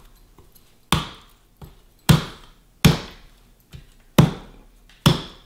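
Kitchen knife striking the hard inner shell of a trimmed young coconut, about five heavy chops roughly a second apart with a couple of lighter knocks between, to crack the shell open.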